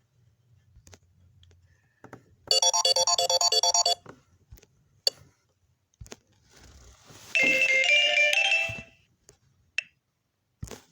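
Samsung Galaxy S9 ringtones played through a Lenovo A5 phone's speaker in two short snippets. A pulsing electronic melody starts about two and a half seconds in and cuts off after about a second and a half. A second short tune follows near the eighth second, with a few faint clicks in the gap between them.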